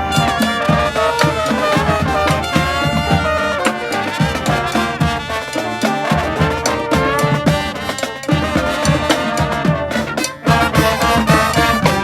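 Street brass band playing a lively tune, horns over a steady beat. It drops out briefly about ten seconds in, comes back loud, and stops at the very end.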